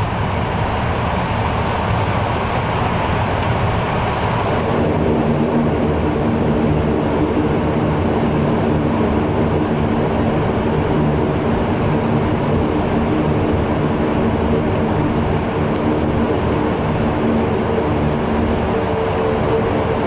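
Saab 2000's Rolls-Royce AE 2100A turboprop engines and propellers heard from inside the cabin while taxiing: a steady drone with several steady tones, the high hiss easing about five seconds in.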